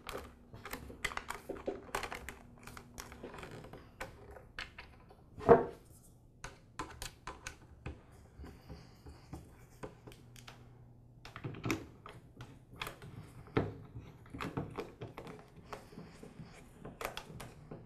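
Irregular small clicks and ticks of a screwdriver driving screws into a plastic string-trimmer handle housing and the plastic halves being handled, with one louder knock about five and a half seconds in.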